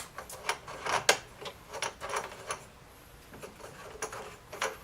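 Irregular small clicks and knocks of a Saiga rifle being handled in a plastic gun vise, about a dozen over a few seconds, the loudest about a second in.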